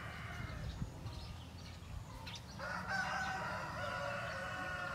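A rooster crowing: one long, drawn-out call that starts about halfway through, over a low rumble of wind or phone handling.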